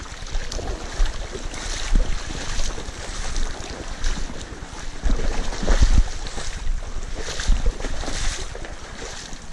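Creek water rushing while a hooked brown trout splashes at the surface near the bank. Over it come irregular low bumps and rubbing from a chest-mounted action camera as its wearer moves, loudest about two seconds in and around six seconds in.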